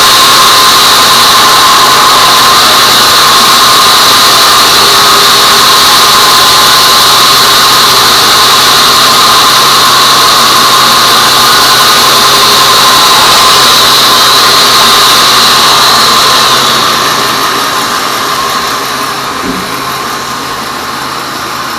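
Sawmill band saw cutting a teak log: a loud, steady, high-pitched whine. About three-quarters of the way through, the sound drops and the high whine fades as the saw runs on more quietly.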